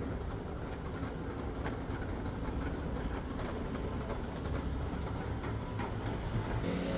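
Loaded hotel luggage trolley's wheels rolling over brick paving: a steady low rumble with a few light clicks.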